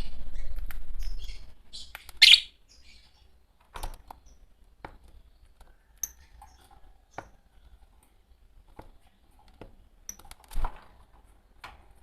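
Fischer's lovebirds chirping: one loud, shrill call a little over two seconds in, then scattered sharp clicks and brief chirps. A low rumble runs under the first second.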